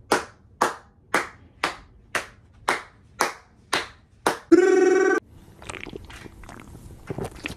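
Hands clapping in a steady beat, about two claps a second, nine claps in all, with room echo. Right after, a loud held tone sounds for under a second.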